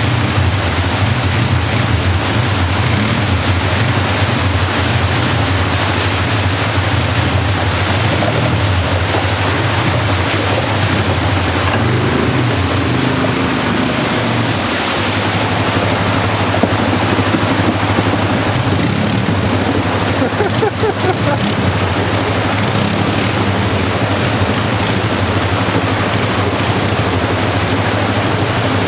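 Fast creek water rushing over rocks close by, with an ATV engine running low and steady underneath as the quad wades up the stream.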